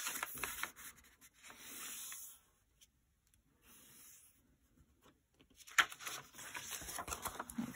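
A sheet of white paper being folded on the diagonal by hand, with fingers rubbing and sliding over the paper to press the crease. The rubbing comes in two spells, in the first couple of seconds and again from about six seconds in.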